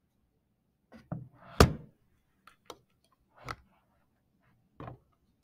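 A few scattered clicks and knocks, about half a dozen, with one sharp, louder knock about a second and a half in.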